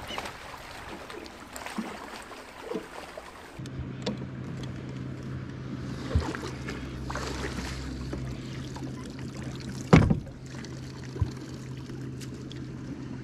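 Small boat on a lake, with a steady low hum from its electric bow-mount trolling motor starting a few seconds in. A single sharp knock on the boat comes about ten seconds in.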